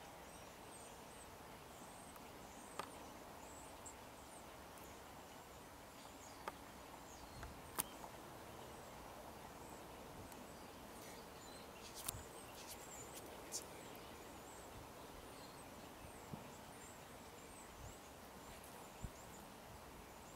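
Near silence: quiet outdoor background hiss with faint, high chirps scattered throughout and a few soft, sharp clicks.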